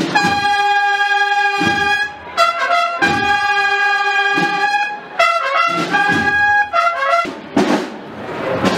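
Marching band trumpets playing a slow processional phrase in unison, with long held notes broken by short quicker ones and brief pauses.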